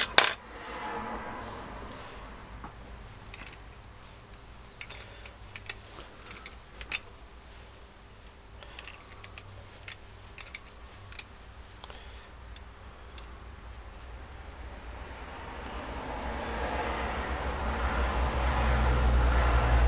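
Light metallic clicks and taps of a hand tool and steel bolts while the two long through-bolts are undone on a Bosch starter motor, with one louder clack right at the start. A low rumbling noise builds over the last few seconds.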